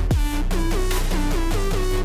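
Electronic hip-hop backing music with a heavy beat and deep bass, drum hits dropping in pitch, no vocals in this stretch.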